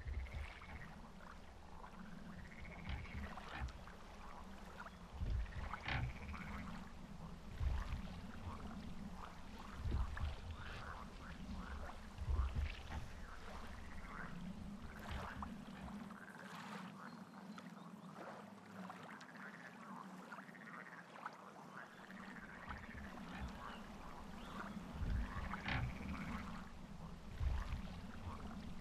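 A chorus of frogs croaking, with calls repeating every second or two over a steady low croaking drone. Occasional low thuds sound underneath.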